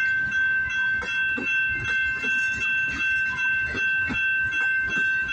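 CN freight cars rolling past, their wheels knocking over rail joints about twice a second, with a steady high-pitched squeal over the top.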